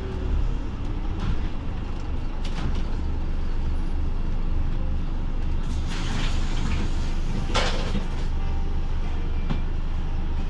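Scania OmniCity bus's engine running with a steady low rumble, heard from inside the passenger saloon. A short sharp hiss of air comes about three-quarters of the way through.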